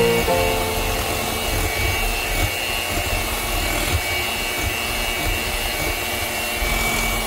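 Electric hand mixer running steadily, its wire beaters whipping a thick cream mixture in a glass bowl.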